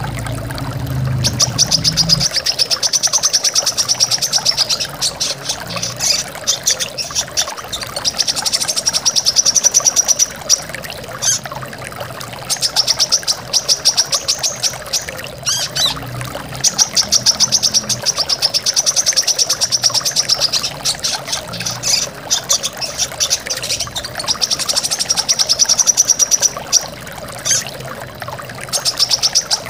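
Brown-throated sunbird singing fast, high trills of rapidly repeated notes in bouts of a few seconds, over the steady rush of a stream or waterfall.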